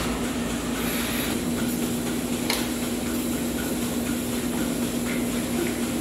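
Machinery running steadily: a constant hum over an even drone, with one sharp click about two and a half seconds in.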